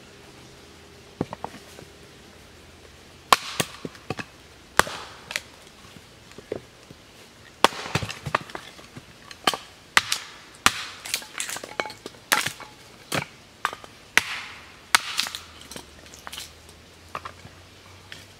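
Hatchet chopping and splitting a cedar billet on a stump chopping block: a few light taps, then from about three seconds in a long run of sharp, irregular strikes, coming quicker in the middle stretch.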